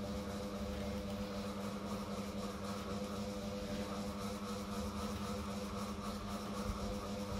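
Steady hum of a running motor: an even low drone with a fainter higher tone above it, unchanging throughout.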